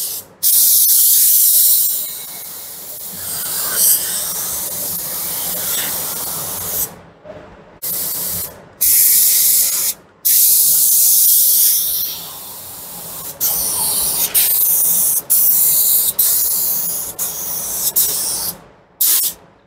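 Gravity-feed paint spray gun hissing as it sprays a coat of primer, the spray stopping and starting about five times with short breaks between passes.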